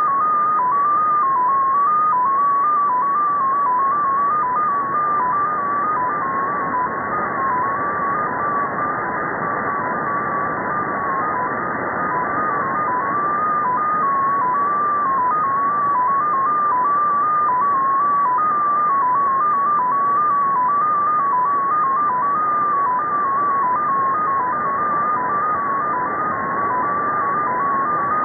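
Russian shortwave data station XPA2 received on upper sideband: a single tone hopping rapidly up and down among a few close pitches near 1 kHz, over steady radio hiss.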